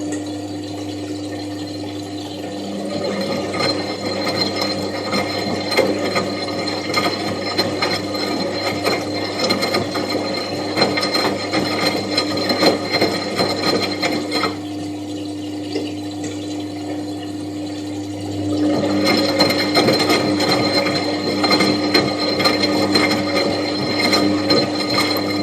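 Washing machine running: a steady motor hum with a busy rattling clatter from the turning drum. It eases off for a few seconds past the middle, then picks up again louder.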